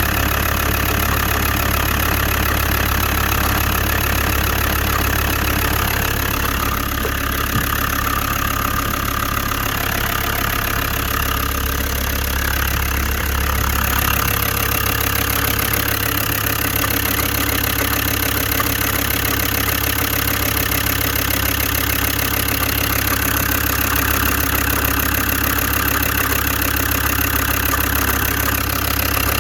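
Land Rover Td5 five-cylinder turbodiesel idling steadily as it warms up after starting.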